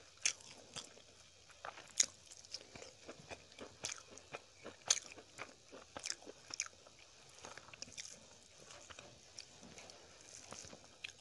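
Close-up chewing of fried fiddlehead fern and rice, with irregular sharp mouth clicks and crunches, the loudest about two seconds and five seconds in.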